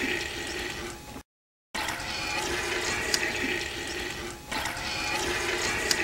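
Goat's milk squirting from hand-squeezed teats into a plastic bucket: a hissing liquid sound that comes in stretches a second or so long with each round of squeezes. The sound cuts out completely for about half a second about a second in.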